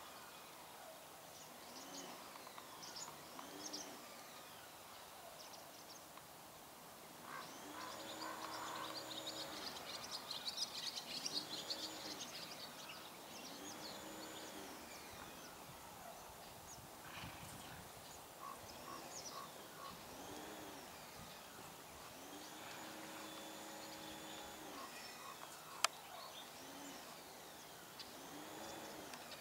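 Birds chirping and calling, faint, with a dense run of high chirps about eight to twelve seconds in. A single sharp click sounds near the end.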